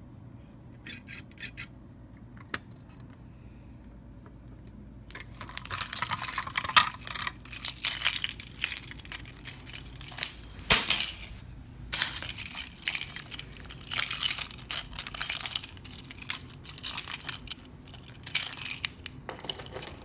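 A bunch of keys on a ring jangling and clinking as it is handled, on and off from about five seconds in, with a few light clicks before that.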